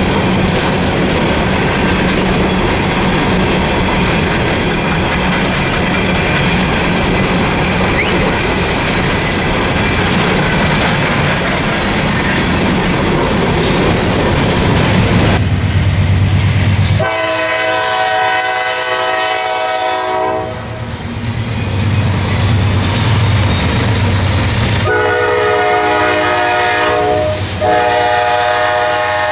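A train rolling past with a steady rumble and rail clatter. About halfway through, a locomotive's multi-note air horn sounds a blast of about three seconds, then sounds again for about four seconds near the end, broken by a short gap.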